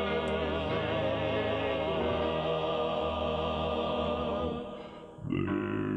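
Barbershop quartet singing unaccompanied in close harmony, holding a long chord over a very deep bass voice. The chord fades out about five seconds in and a new chord starts just before the end.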